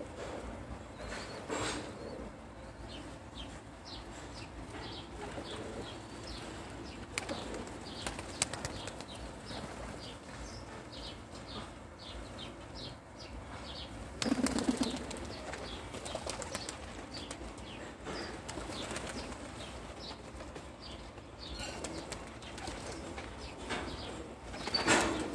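A flock of Ödemiş süslüsü fancy pigeons, feeding and moving about, with many short rustles of wings. There is a louder flurry of wing flapping about halfway through and another near the end as birds take off.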